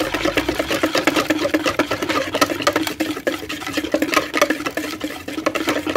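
Electric hand mixer running steadily, its motor humming while the twin wire beaters clatter and scrape against the bowl as they beat flour into a runny egg batter.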